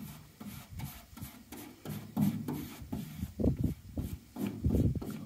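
Paintbrush bristles stroking back and forth over a vinyl stencil and masking tape on a truck's cab door, a run of irregular brushing rubs, some heavier than others.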